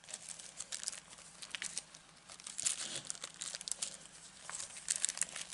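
Thin clear plastic sleeve crinkling as it is handled: a run of irregular crackles.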